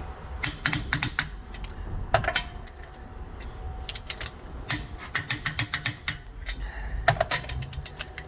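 Ratchet wrench clicking in short, quick runs of clicks, several times over, as the wheel's lug nuts are tightened.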